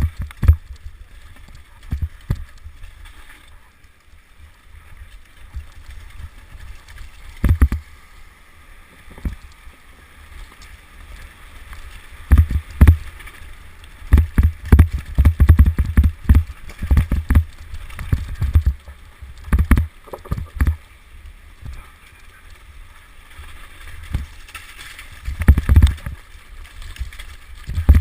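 Mountain bike jolting over rough ground at race speed: irregular knocks and rattles, in clusters, over a steady low rumble of wind on the microphone.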